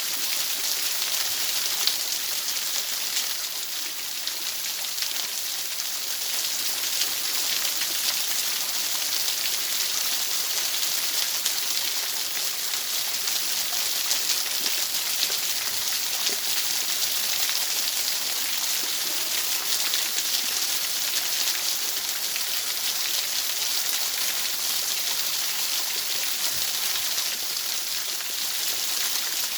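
Steady, bright hiss like heavy rain, with a fine pattering texture and no change in level throughout.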